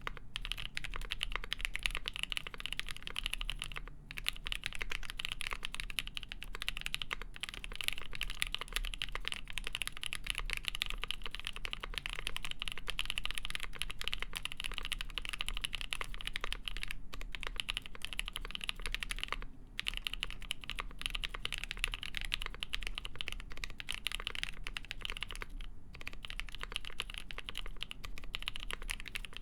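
Continuous typing on a Polaris mechanical keyboard with a full polycarbonate plate, GMK Shoko keycaps and NovelKeys Cream linear switches lubed with Krytox 205g0: a dense run of key clacks with a few brief pauses.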